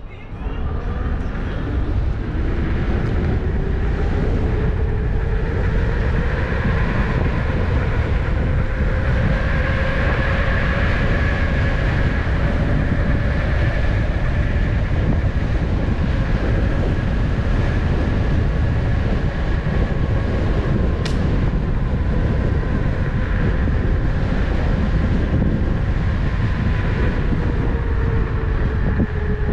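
Electric unicycle's hub motor whining while riding, its pitch drifting slowly up and down with speed, over a steady low rumble of wind on the microphone. There is one sharp click about two-thirds of the way through.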